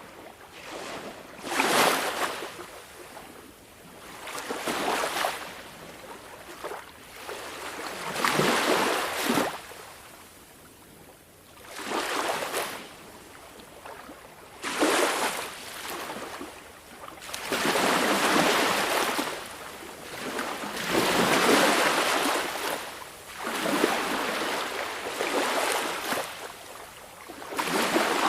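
Small waves on a calm sea breaking and washing onto the shore one after another, a swell of surf noise every two to four seconds.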